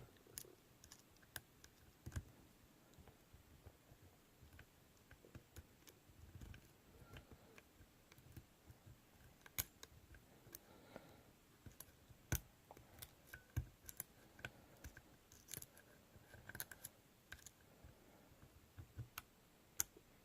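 Faint, irregular small metallic clicks and scrapes of a lock pick and tension wrench working the pins inside a Mindy padlock, with a few sharper clicks in the middle.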